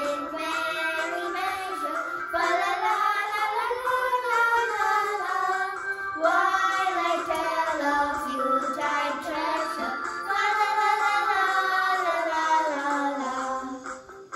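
A woman and two children singing a Christmas carol together; the voices trail off near the end.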